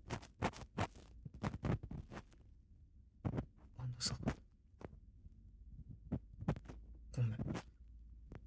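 Close-up rubbing and scratching on a binaural ASMR microphone's ear, as in ear-cleaning ASMR: irregular short strokes, a few a second, with a brief lull about two and a half seconds in.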